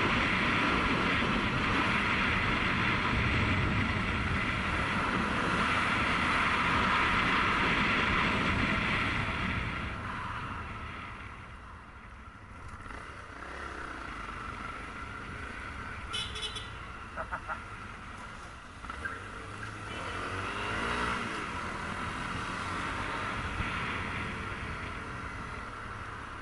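Honda CRF250L single-cylinder four-stroke engine running under a loud rush of wind on a helmet-mounted microphone while riding at speed; about ten seconds in it eases off and goes quieter as the bike slows. A few short clicks come in the middle, and the engine revs up and drops back near the end.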